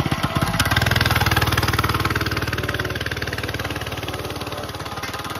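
Mini bike's small single-cylinder engine pulling away under throttle, its fast firing pulse loudest about a second in, then slowly fading as the bike rides off.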